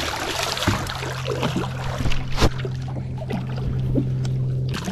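A large paddlefish, foul-hooked in the tail, thrashing and splashing at the water's surface beside a boat. The splashing is heaviest in the first second or so, with a couple of sharp knocks, over a steady low hum.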